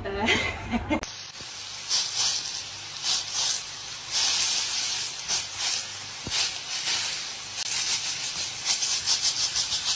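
Small sausages and round sausage slices sizzling in hot oil in a frying pan, a steady hiss with many small crackles and pops. The sizzling starts about a second in.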